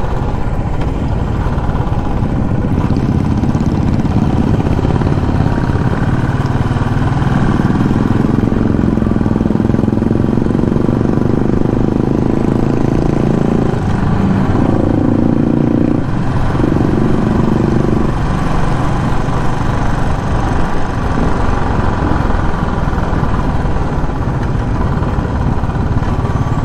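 Royal Enfield Classic 350's single-cylinder engine running under way at cruising speed, with wind rushing past. About halfway through, two short steady tones sound over it.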